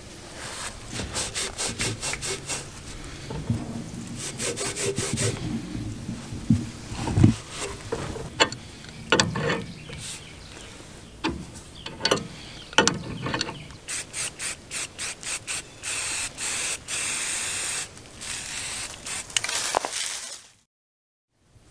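Wrenches turning threaded black iron gas-pipe fittings tight, with runs of quick metallic clicks and scraping as the wrench jaws and the taped threads work. The sound drops out briefly near the end.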